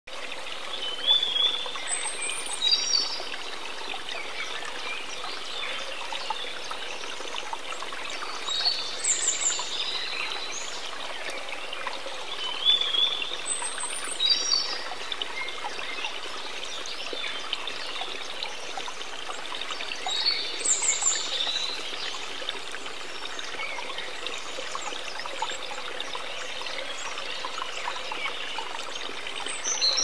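Steady rush of a waterfall pouring into a pool. Birds call over it in short bouts of high chirps and whistles every several seconds.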